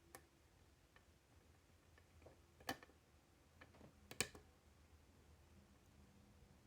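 Faint, scattered clicks and ticks of a lock pick working the pins of a five-pin pin-tumbler challenge lock, with two sharper clicks near the middle.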